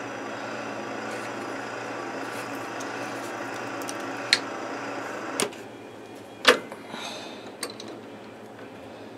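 A steady rushing noise that cuts off about five seconds in, followed by two sharp metal clanks and a few lighter clicks as the drill and chuck on the milling machine are handled.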